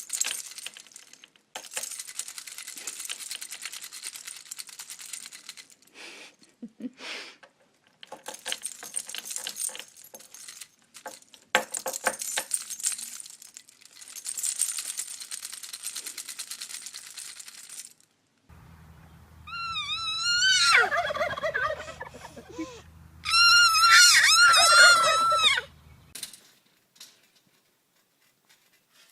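Two loud, rapidly warbling bird calls, each about two seconds long, in the second half, with a short gap between them. Before them are several stretches of fainter scratchy hiss.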